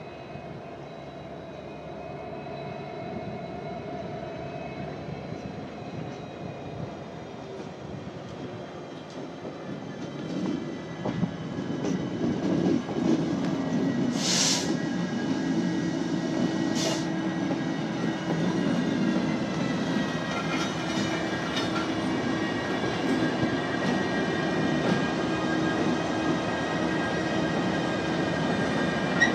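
Union Pacific locomotive and freight cars on the move during switching, with the train sound growing louder about halfway through and a steady high whine over it. Two short bursts of hiss come a few seconds apart.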